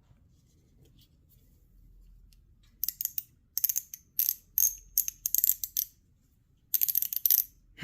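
Hand socket ratchet being worked back and forth: the pawl clicks in short rapid bursts, about half a dozen, starting a few seconds in, then one longer burst near the end.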